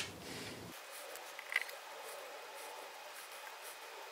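Quiet handling of a screwdriver and a steel face-mill body: a sharp click at the very start and a smaller click with a short ring about one and a half seconds in, with faint hiss between.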